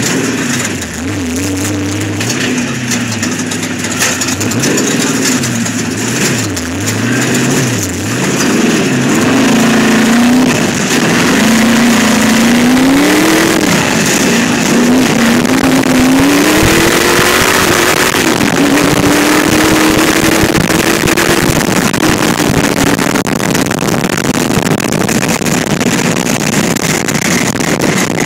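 Sandrail dune buggy engine, heard from inside the open buggy, revving up and down in quick swings as the throttle is worked. About ten seconds in it settles into a steadier, higher run under loud wind rush.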